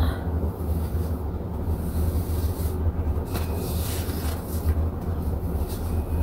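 A steady low rumble with no clear source, unbroken throughout, with a few faint soft rustles in the middle.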